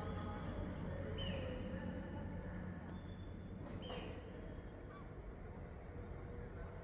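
Railway station background: a low steady hum, such as from a train or locomotive standing at the platform, that eases off after two or three seconds. Two short, high, falling bird calls come about a second and about four seconds in.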